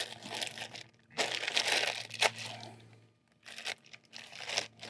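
Clear plastic bag and brown packing paper crinkling and rustling as a new VANOS solenoid valve is unwrapped by hand, in irregular bursts with a short pause about three seconds in.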